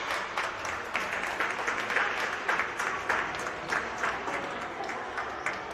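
Applause: a small group clapping their hands, with many quick, uneven claps that ease off slightly toward the end.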